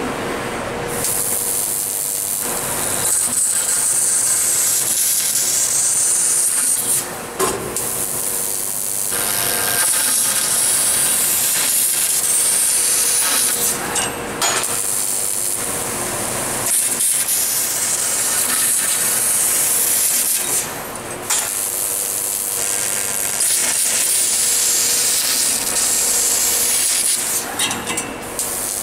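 1000 W fiber laser tube cutter cutting 3.5 mm carbon steel tube: a loud, high hiss of the cutting and gas jet, in long stretches broken by several brief pauses.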